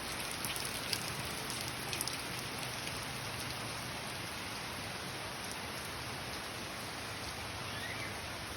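Steady rainfall, with individual drops ticking sharply on a surface now and then in the first couple of seconds.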